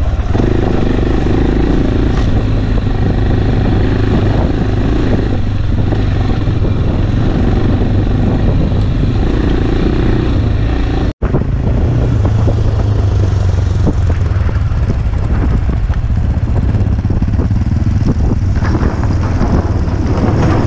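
AJP PR7 motorcycle engine running steadily while riding off-road, picked up by a bike-mounted camera with constant wind and road noise over it. The sound cuts out for an instant about halfway through.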